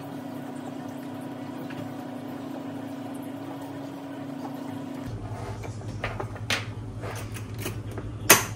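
A steady electrical hum in a kitchen. About five seconds in it gives way to a lower hum, with light clinks of utensils and bowls, one sharp clink near the end.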